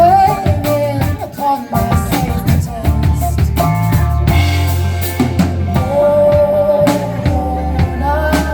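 Band playing a song: a drum kit with snare and bass drum hits over a steady bass line, with a melody line on top.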